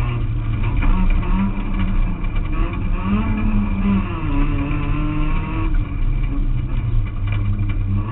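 Renault Clio autocross car's engine heard from inside the cabin, running hard under racing load, its revs climbing and dropping with gear changes, with a brief dip about six seconds in.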